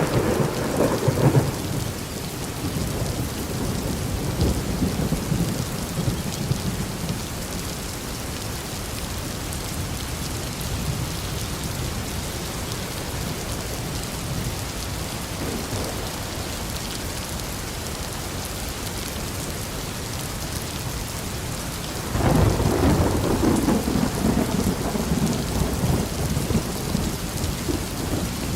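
Steady rain pouring down, with rolling thunder. A fading rumble trails off in the first couple of seconds, and a louder roll of thunder breaks in suddenly about three-quarters of the way through and rumbles on for several seconds.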